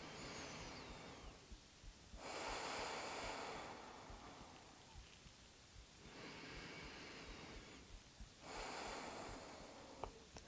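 A woman breathing slowly and deeply in and out through the nose: four long, faint breaths with pauses between them.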